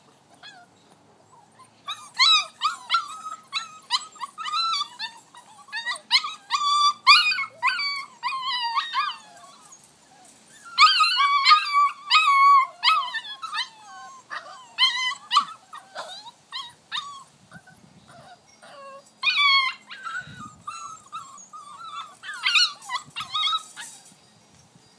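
Six-week-old vizsla puppy whining and crying in high, wavering calls, in bouts of a few seconds with short pauses between.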